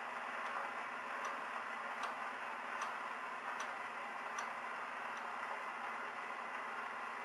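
Pathé phonograph reproducer tracking the silent end groove of a Pathé disc after the music has finished: steady record-surface hiss with a soft click about every three-quarters of a second, once per turn of the record.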